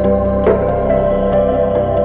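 Ambient background music: held synth chords, with a single hit about half a second in.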